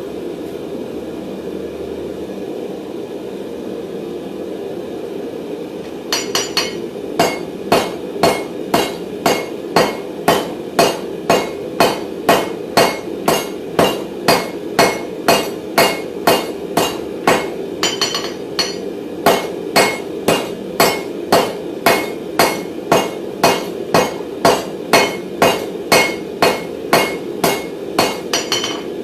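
Small forging hammer striking a hot round mild steel bar on an anvil. Quick, light blows of about two a second begin about six seconds in, with a short break near the middle. A steady drone runs underneath.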